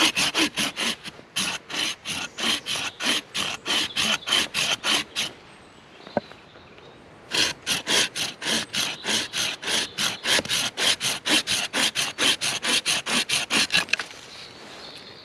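Bahco Laplander folding saw cutting through a green branch with quick back-and-forth strokes, about four a second. The sawing pauses for about two seconds, then resumes until the piece is cut off near the end.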